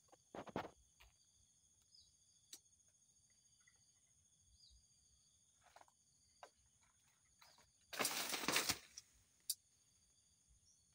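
Coconut palm fronds rustling as a trained pig-tailed macaque works a coconut loose: a brief rustle near the start, then a loud rustling crash of under a second about eight seconds in as a coconut falls through the fronds, and a single sharp knock a moment later. Faint steady insect buzzing underneath.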